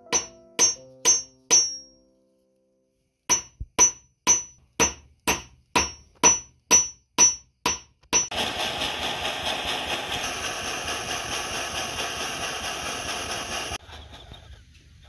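Metal hammer striking a silver ring on a steel anvil stake, sharp ringing blows at about two a second, with a pause of about a second and a half early on. From about eight seconds a jeweller's torch flame gives a steady rushing hiss for about five and a half seconds.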